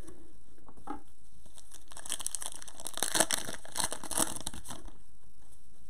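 Foil wrapper of a Panini Prizm basketball retail card pack crinkling and tearing as it is ripped open by hand. The crackling starts about two seconds in and dies away after about four and a half.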